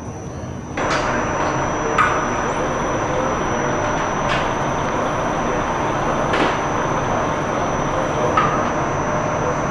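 Steady mechanical running noise that starts suddenly about a second in, with a few light knocks about every two seconds.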